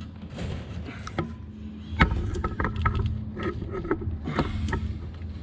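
Clicks and knocks of parts on a Honda CRF110's fuel-injected intake being wiggled up and down by hand to work a wire free, with one loud knock about two seconds in followed by a run of clacks. A steady low hum runs underneath.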